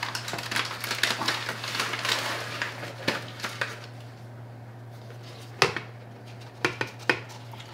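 Paper bag of concrete underlayment powder crinkling and rustling as a plastic measuring cup is scooped into it, then a few light knocks of the cup on a plastic mixing bucket near the end. A steady low hum runs underneath.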